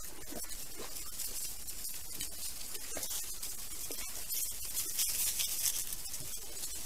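Wild boar piglets foraging in grass and leaf litter: scattered rustling, scratching and small ticks, over a steady hiss from the trail camera's microphone.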